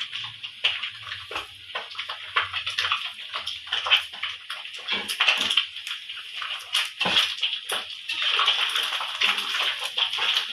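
Fresh cassava leaves rustling and crackling as they are handled by hand and dropped into a plastic tub: a string of crisp rustles that runs into a thicker, continuous rustle near the end.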